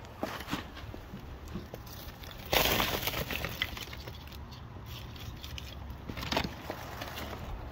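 Lumps of coal being shifted, with small clicks and rattles and a loud crunching rush about two and a half seconds in that fades over about a second, then a shorter one a little after six seconds.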